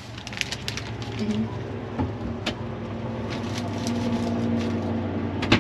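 A vehicle engine running steadily with a low hum that grows slightly louder, with scattered small clicks and one sharp click near the end.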